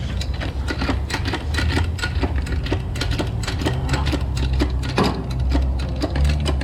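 A small machine running with rapid, even clicking over a steady low hum.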